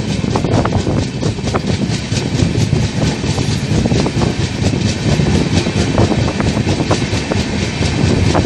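Running noise of a moving passenger train, heard at an open coach doorway: a steady rumble with wheels clattering over rail joints and points.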